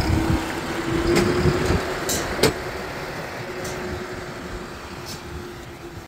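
Tractor engine running steadily, with a few sharp clanks in the first few seconds.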